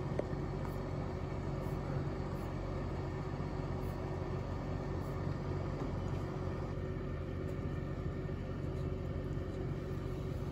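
Steady low hum and rumble of background room noise, unchanging throughout, with a faint click right at the start.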